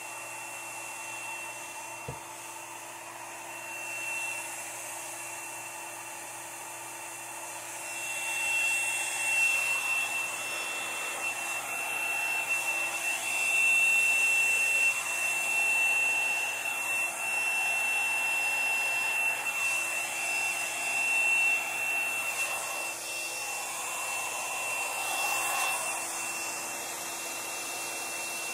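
Handheld hair dryer running, blowing air over wet acrylic pour paint. It grows louder about eight seconds in, when a steady high whine comes in over the rush of air, and the level rises and falls as the dryer is moved.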